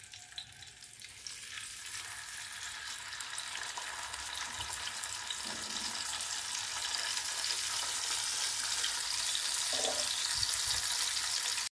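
Boiled chicken leg pieces sizzling and crackling in hot ghee in a nonstick pot, the frying hiss growing steadily louder as more pieces go in. Two soft knocks, about five and a half and ten seconds in, come as pieces are set down in the pot.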